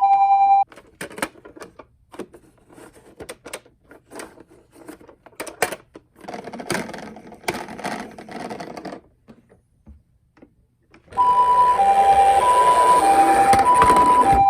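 Japanese two-tone ambulance siren alternating high-low (pee-po) that cuts off abruptly half a second in. About ten seconds of light plastic clicks and rattling follow as toy ambulance minicars are handled. The two-tone siren starts again about eleven seconds in, over a broad rushing noise.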